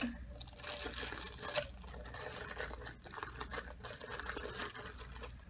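Clear plastic bag wrapping crinkling and crackling irregularly as a plastic bowl is pulled out of it.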